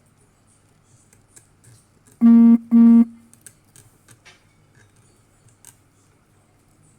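Two short, loud electronic beeps of the same low, buzzy pitch, about half a second apart, followed by faint clicks of parts being handled.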